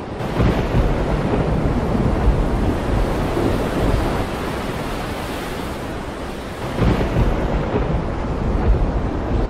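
Two steel ship hulls grinding against each other side by side: a deep rumbling noise that swells about half a second in and again near seven seconds, over wind buffeting the microphone.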